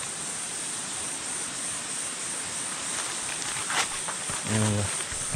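A steady chorus of insects fills the background with an even hiss. About three and a half seconds in there is one short click, and shortly after it a man's voice is heard briefly.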